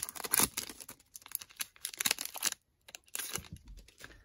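Foil wrapper of a 2021 Panini Select football card pack crinkling as it is torn open and the cards are pulled out. The crackling is dense for about two and a half seconds, then gives way to a few softer rustles.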